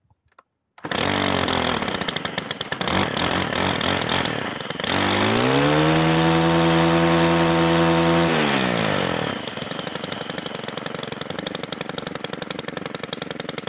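Stihl FS 311 brushcutter's 4-MIX engine starts suddenly about a second in and runs. Around five seconds in it is revved up to full throttle with a rising whine, held there for about three seconds, then let fall back to a steady idle. It is a test run after fitting a new angle gearbox.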